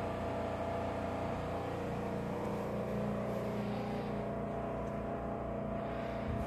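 A steady mechanical hum, some machine running, with several constant tones over a low rumble.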